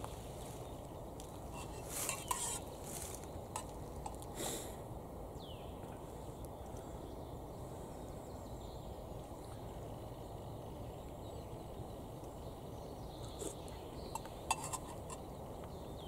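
A spoon clinking and scraping against a metal camping mug: a cluster of clicks about two to four seconds in and a few more near the end, over a steady low outdoor background.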